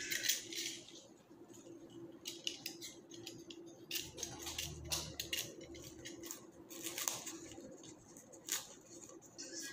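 Florist's scissors snipping flower stems, a scattering of short sharp snips, with leaves and stems rustling as flowers are pushed into the arrangement at the start and near the end.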